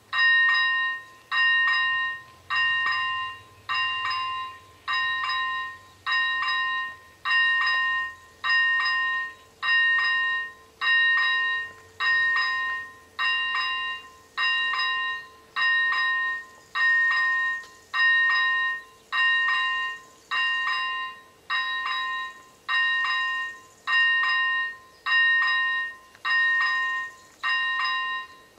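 ZV-01 electronic level-crossing bell ringing as the crossing activates, warning of an approaching train. A loud, bright electronic ding-tone sounds in pulses of just under a second with short gaps, about one every 1.2 seconds, beginning abruptly and repeating steadily.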